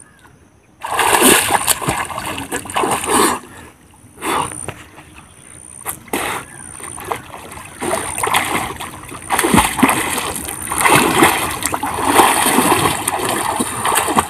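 A person swimming in a pond, water splashing and sloshing around him in uneven bouts. The splashing starts about a second in, after a short quiet, and eases briefly twice before picking up again.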